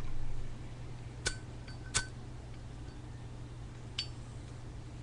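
Zippo lighter's metal case clinking: two sharp clinks with a short ring, about a second and two seconds in, then a lighter one near the end.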